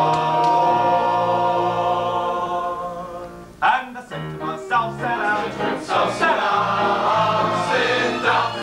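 Musical-theatre chorus and band holding a long sustained chord that fades out a little over three seconds in. Then the accompaniment comes back in with a sharp hit and a brisk, bouncing swing rhythm.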